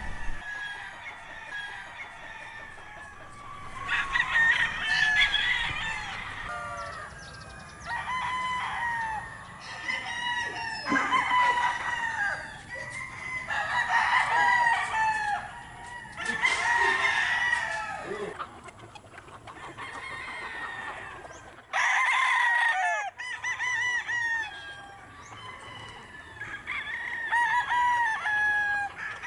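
Many gamefowl roosters crowing over one another, one crow starting every second or two, with clucking between; one crow about 22 seconds in is especially loud and close.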